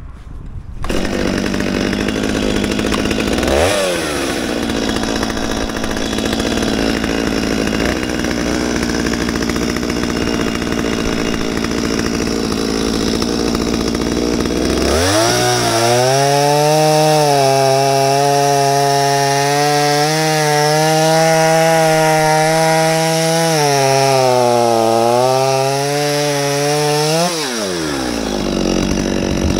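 Stihl 021 two-stroke chainsaw ticking over with a brief throttle blip. About halfway through it revs up and holds high speed for roughly twelve seconds while cutting into a cherry log, its pitch sagging briefly under load, then drops back to idle near the end.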